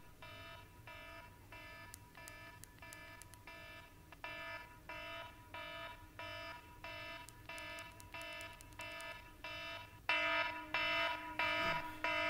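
Alarm beeping in a steady repeating pattern, about one and a half beeps a second. It grows louder in steps, about four seconds in and again about ten seconds in.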